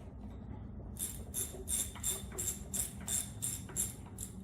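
A run of about ten quick metallic jingling strokes, roughly three a second, starting about a second in.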